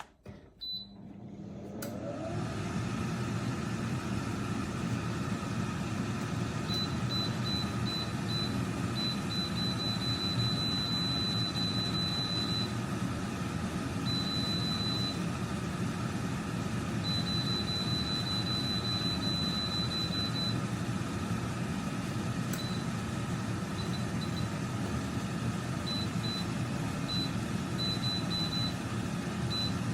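Cecotec Cecofry Dual 9000 air fryer switching on: a short beep, then its fan spins up over about two seconds and runs with a steady whir. A faint high-pitched tone comes and goes over it.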